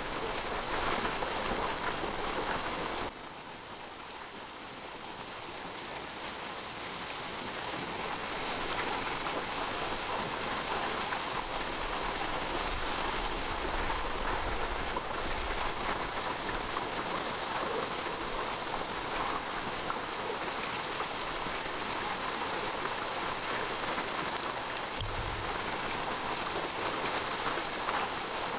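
Steady patter of falling rain, with an abrupt drop in level about three seconds in that gradually builds back up.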